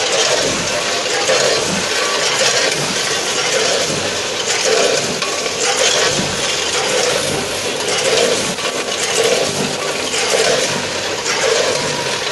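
A 10-head multihead combination weigher running: hopper gates clacking and small pieces of product rattling down the metal chutes, pulsing about once a second over steady machine noise.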